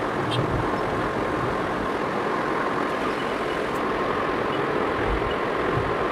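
Steady rushing background noise with a faint steady tone through it, even in loudness and without any clear events.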